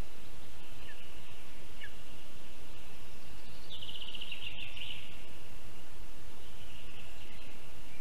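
Steady forest hiss with small birds calling: two short rising chirps about one and two seconds in, and a rapid trill about four seconds in that is the loudest sound.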